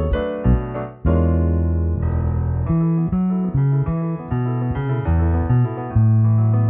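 Instrumental music on a digital stage piano, playing chords and runs over a five-string electric bass line of low held notes. The sound briefly drops about a second in, then the playing resumes.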